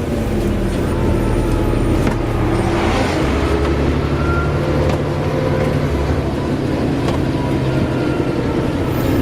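Volvo Olympian double-decker bus running under way, its diesel engine note steady with a shift in the note about three seconds in.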